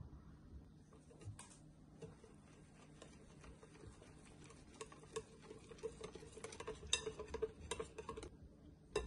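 Wire balloon whisk stirring cake batter in a glass bowl: a quick stream of light ticks and taps as the wires hit the glass, growing faster and louder about six seconds in and stopping just after eight seconds. One sharp tap follows near the end.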